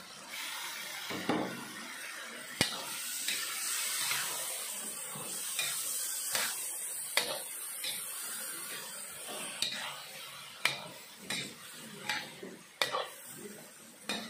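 Pork meatballs and holy basil being stir-fried: oil sizzling while a spatula scrapes and knocks against the pan. The sizzle dies down about two-thirds of the way through, leaving sharp spatula knocks about once a second.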